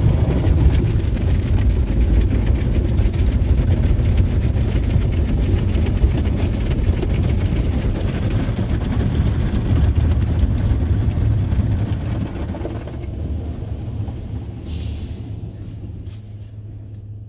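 RYKO rollover car wash at work on the truck, heard from inside the cab: spinning cloth brushes and water spray make a dense rushing and slapping over a low rumble. The noise dies down and grows duller over the last few seconds.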